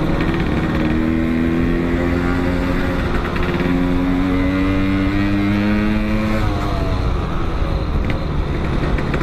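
Motorcycle engine accelerating under throttle, its pitch climbing steadily for about six seconds, then dropping as the throttle eases. Wind rumbles throughout.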